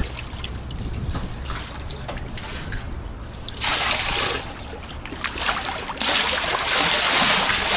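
Swimming-pool water splashing and sloshing around a swimmer, in two louder surges, one about three and a half seconds in and a longer one from about six seconds in.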